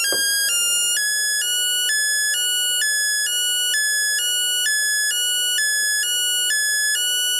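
Home-built 555/556 timer 'theremin' siren sounding through its small speaker: a buzzy square-wave tone warbling between two pitches, switching about every half second. A short click comes right at the start.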